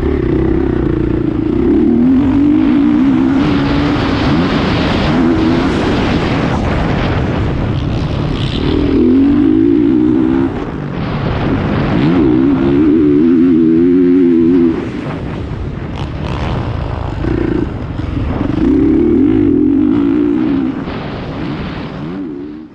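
2019 Honda CRF450R's single-cylinder four-stroke engine revving hard, then dropping back as the throttle is opened and closed in repeated surges, with the pitch rising and falling through each one.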